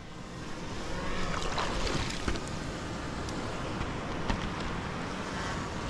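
Steady rush of wind and water around a small boat on open water, with a few faint knocks.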